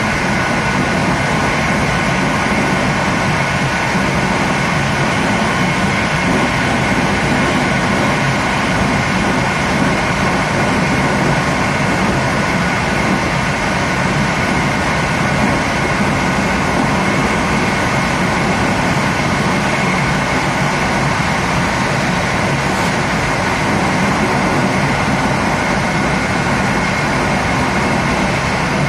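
Passenger train running at speed, heard from inside its last carriage: a steady rush and rumble of wheels on rail with a few faint steady whining tones above it.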